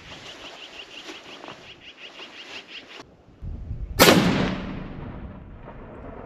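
A single shot from a Fierce Carbon Rival hunting rifle about four seconds in: a sharp crack that rings out and dies away over about a second and a half.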